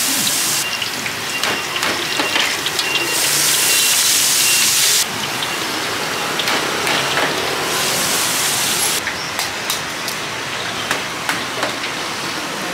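Battered bananas deep-frying in a large wok of hot oil: a loud, dense sizzle, brighter in two stretches that cut off abruptly and thinner near the end, with scattered clicks of metal utensils.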